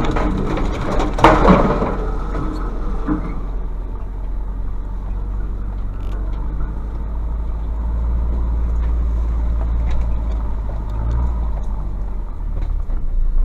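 A pickup's WLT 2.5-litre turbodiesel engine runs with a steady low drone as the truck creeps along. Branches crunch and scrape against the truck in the first couple of seconds.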